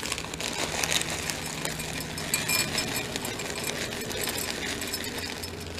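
Semi-sweet chocolate chips poured from a bag into a glass bowl of oats, a continuous rapid rattle of many small chips landing.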